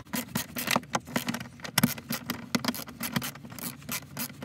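Quick, irregular clicking and scraping from a hand tool loosening the 7mm screws in a Ford F-150's plastic dashboard trim.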